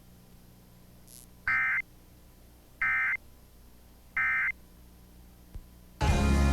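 Emergency Alert System end-of-message data bursts: three short, identical, buzzy digital squawks about 1.4 seconds apart, closing an alert whose voice message was cut off mid-sentence. Music starts up near the end.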